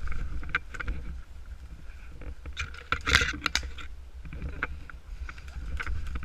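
Low rumble and rustling of a player moving through brush, with scattered clicks and a louder rustling burst about three seconds in.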